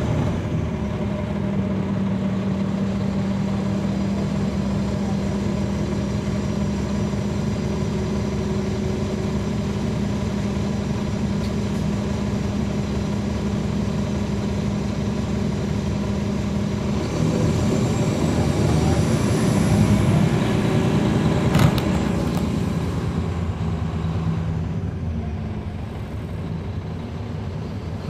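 Caterpillar C13 ACERT diesel of a NABI 40-SFW transit bus, heard from the rear seats inside the bus. It runs steadily, then about two-thirds of the way through it picks up and gets louder with a rising whistle. A single knock comes a few seconds later, and the engine eases off near the end.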